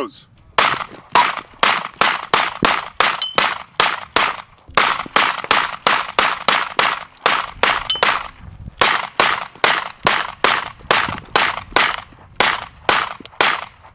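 Glock 30S .45 ACP pistol firing rapidly, dozens of shots at about three a second, broken by two short pauses.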